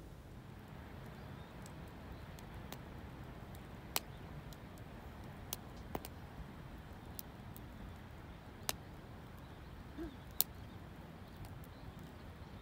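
Wood campfire crackling: scattered sharp pops at irregular intervals over a faint, steady low rumble.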